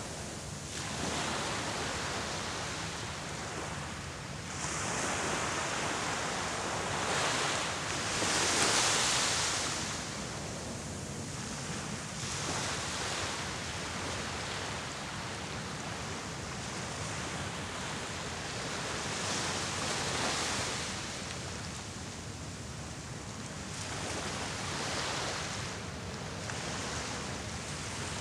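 Small sea waves washing onto the shore: a steady hiss of surf that swells and fades every few seconds, loudest about nine seconds in.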